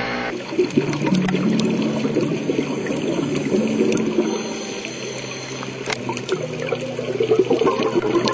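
Underwater bubbling and gurgling from scuba divers' exhaled air, full of small crackling clicks. It starts abruptly just after the start and grows louder near the end as a diver comes close.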